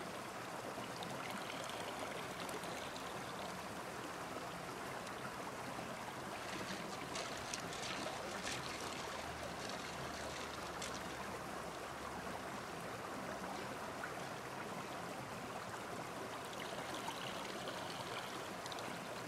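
Shallow rocky stream running steadily over stones, with a few faint clicks midway.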